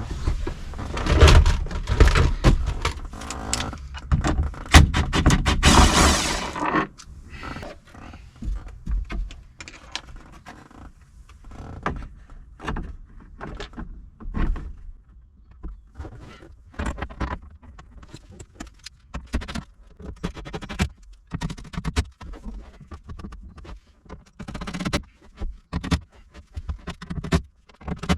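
Hands fitting a sun visor and its mounting screw through a plastic roof console against the cab roof. For the first several seconds there is loud scraping and rustling, then a long run of short knocks, taps and clicks as the parts are lined up and fastened.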